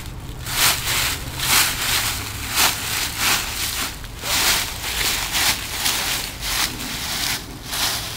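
Footsteps through dry fallen leaves at a walking pace, about two steps a second.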